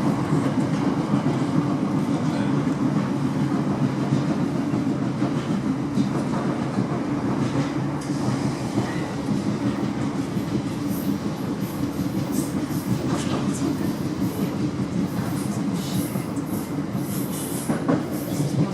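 Class 455 electric multiple unit running at speed, heard from inside the carriage: a steady rumble of wheels on rail. Sharp high ticks and light squeaks come in during the second half.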